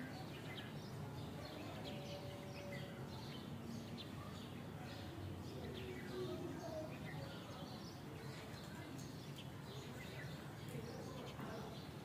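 Outdoor background: a steady low hum of environmental noise with faint, scattered bird chirps throughout.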